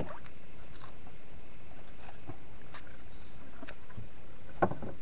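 A few light knocks and taps on the wooden canoe as fish and gear are handled and a board is laid over the fish hold, with a louder knock near the end.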